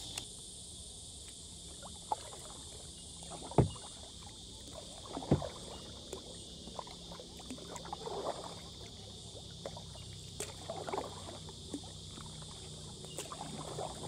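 Kayak paddle strokes dipping and splashing at irregular intervals, with a sharp knock about three and a half seconds in, over a steady high-pitched insect chorus.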